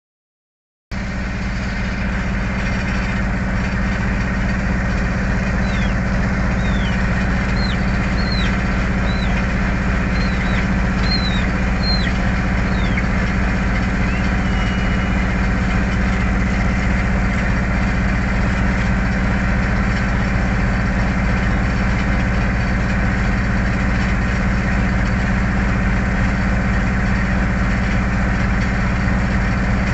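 A river ferry's engine running steadily, a constant low drone that starts just under a second in. Between about five and thirteen seconds in, a series of short, high, falling chirps sounds over it.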